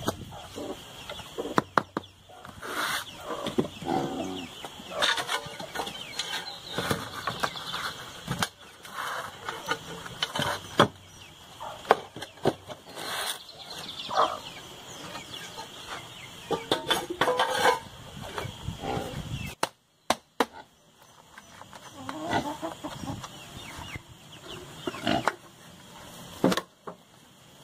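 Irregular knocks and scrapes of a plastic bucket packed with damp earth being handled, turned over onto a tile board and lifted off the moulded earth mound. Clucking calls sound here and there.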